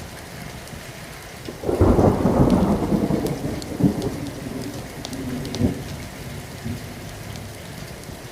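Steady rain falling, with a thunderclap about two seconds in that rumbles off over several seconds, with two further cracks as it fades.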